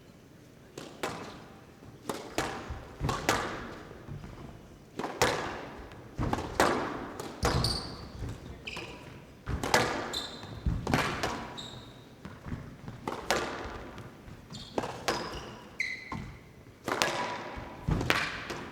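A squash rally: the ball smacked by rackets and off the court walls, sharp echoing impacts about once or twice a second, with short high squeaks of court shoes in between.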